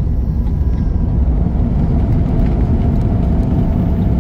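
Airliner's landing roll heard from inside the cabin just after touchdown: a loud, steady low rumble of the jet engines and the wheels on the runway, with a faint steady whine above it.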